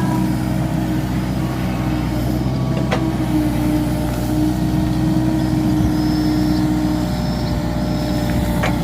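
Komatsu PC45 mini excavator's diesel engine running steadily, with a short sharp knock about three seconds in and another near the end.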